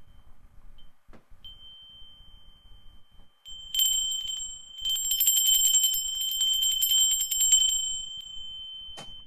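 Brass handbell shaken rapidly, starting a few seconds in: its clapper strikes many times a second for about four seconds, then the bell rings on and fades. It is rung to open the worship service.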